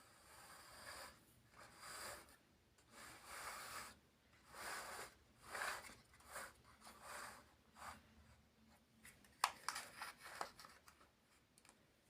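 Plastic building-block pieces handled by hand: soft rubbing and scraping swishes about once a second, with a few sharp clicks about nine and a half seconds in.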